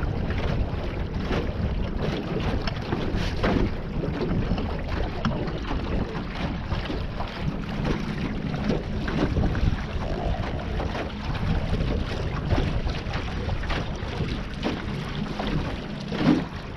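Small John boat under way across the lake: steady motor-and-water noise with wind buffeting the microphone.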